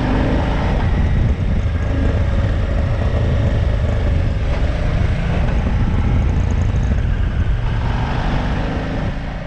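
Motorcycle riding on the road: steady engine and wind rush on the microphone, fading out near the end.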